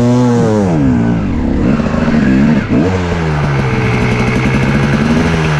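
Dirt bike engine revving and dropping as the bike slows, with a short throttle blip about two and a half seconds in, then running steadily at low revs.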